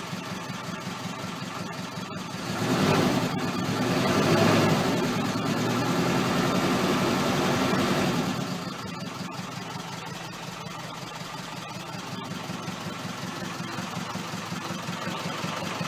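Isuzu NQR truck's four-cylinder diesel engine idling steadily, heard from inside the cab. A louder rushing swell rises about two and a half seconds in and dies away after about eight seconds.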